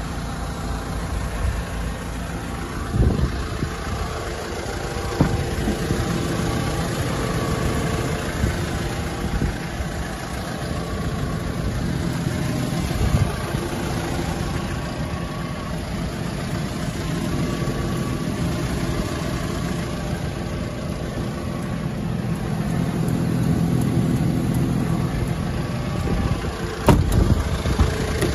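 Hyundai Porter II truck's common-rail diesel (CRDi) engine idling steadily, with a few sharp knocks, the loudest near the end.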